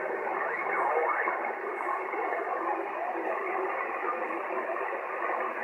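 Single-sideband receiver on 27.385 MHz lower sideband in the 11-metre CB band: steady static hiss with faint, garbled traces of weak long-distance voices fading in the noise.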